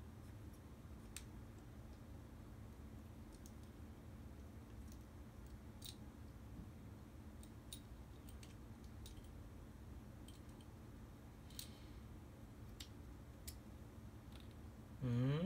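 Faint, scattered clicks and taps of small parts of a motorcycle dash cam kit being handled, over a low steady hum. Near the end a man hums a rising "hmm", the loudest sound.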